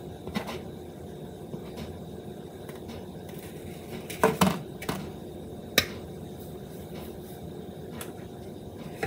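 Spoon and paper plate knocking against a plastic mixing bowl as softened butter is scraped into it: a handful of sharp clicks and taps, loudest about four to six seconds in, over a faint steady hum.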